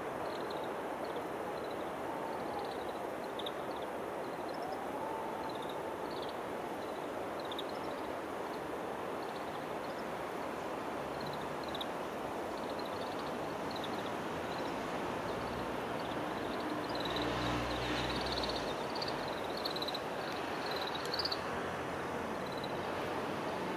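Oriental greenfinches giving scattered short, high chirping calls from a flock, over a steady rushing background noise. A low rumble comes and goes about two-thirds of the way through.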